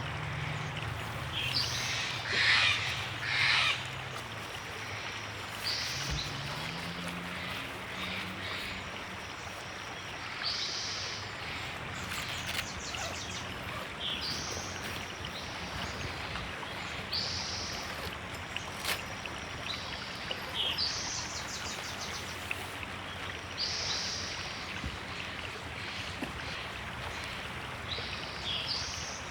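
A river flowing steadily, with a bird calling over it: a short, high call repeated every three to four seconds.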